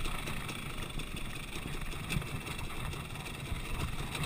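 Dirt bike engine running as the bike is ridden along a trail, its note wavering a little.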